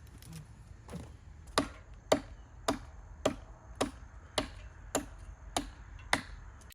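A series of sharp, evenly spaced knocks or strikes, about two a second and about ten in all, the first one faint.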